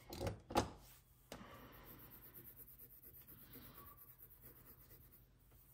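Two short knocks, then a faint, steady scratching as a scraper is drawn across a metal nail-stamping plate, wiping excess polish off the etched design.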